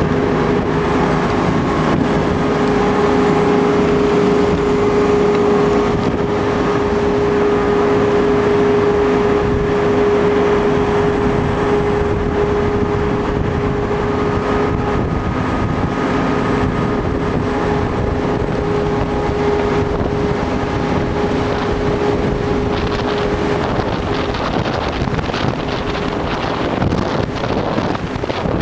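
Tour boat's engine running with a steady hum, heard from the back of the boat, with wind rushing over the microphone. The hum fades near the end as the wind noise grows.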